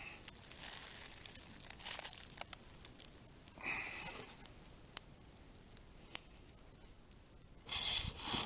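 Venison tenderloin steaks sizzling faintly on a wire grill basket over a small wood fire, with scattered crackles from the burning wood. A louder rustle comes near the end.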